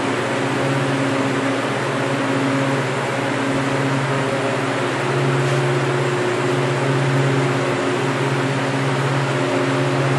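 Walk-in cooler's refrigeration fans running: a steady hum over an even rush of moving air.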